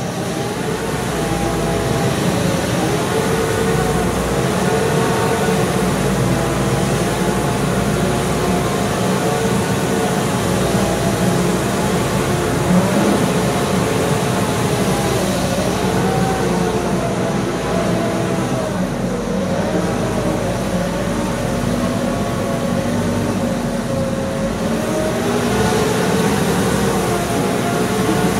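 Spread-a-Bale Mini straw spreader with its twin vertical rotor spreading head running steadily on a tractor, shredding a bale and blowing the straw across a pen, with a whine that slowly wavers up and down in pitch over the engine and rushing straw.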